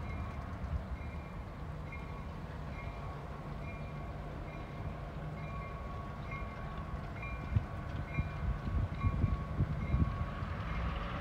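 Diesel freight locomotive approaching with its engine rumbling low and its bell ringing over and over, about once every two-thirds of a second. A few louder knocks come in the second half.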